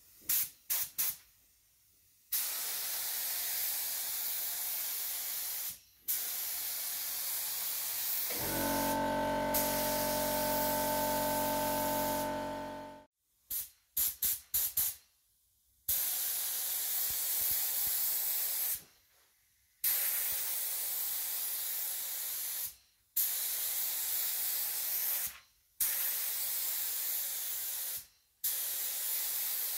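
Compressed-air paint spray gun hissing in a series of trigger pulls as it sprays paint: three quick short bursts, then long passes of two to four seconds each with brief pauses between. For about four seconds in the middle a steady humming tone sounds under the hiss.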